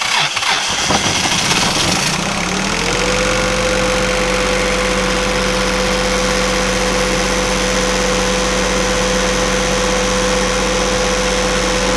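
A Northern Lights 12 kW three-cylinder diesel generator turns over a few cranks before catching, comes up to speed, and settles into a steady run about three seconds in. It should start instantly. The slow start is a fault that the owner suspects comes from fuel draining back to the tank from the lines when the supply tank's fuel is low.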